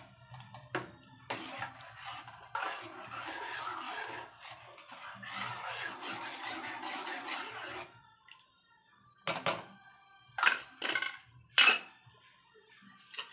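Metal ladle stirring thin rasam in a nonstick pan, scraping and swishing through the liquid for about eight seconds. Then it stops, and a few sharp metal knocks follow.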